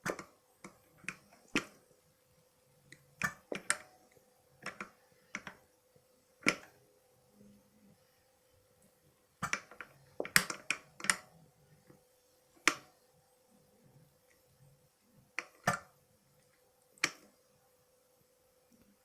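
Leyland Atlantean gear selector under a 75 psi air supply, worked through its gate: a string of sharp, irregular clicks and knocks, about twenty of them, over a faint steady hum. No air leaks are heard.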